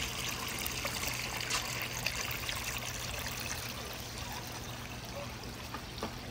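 Water trickling steadily down a wooden water marble run, with a few light ticks over a low steady hum.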